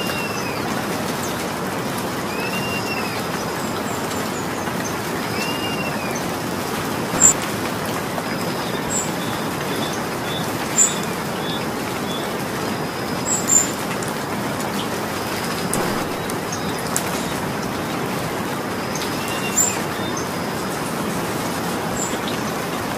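Steady rain falling, with a bird giving short rising-and-falling calls every few seconds at the start and again near the end. A few sharp taps stand out over the rain, loudest in the middle.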